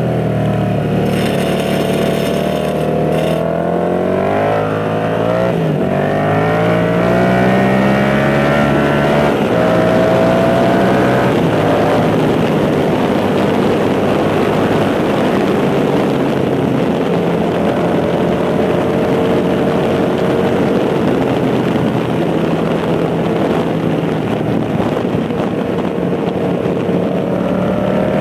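Yamaha MT-07's parallel-twin engine running through an aftermarket tuned exhaust, heard on board while riding: the engine note falls and climbs again with throttle and gear changes through the bends. Wind rush on the microphone runs underneath.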